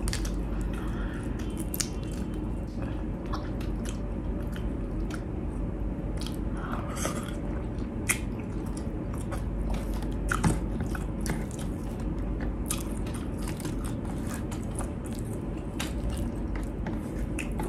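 A person chewing and biting food close to the microphone, with many irregular small crisp crunches and clicks.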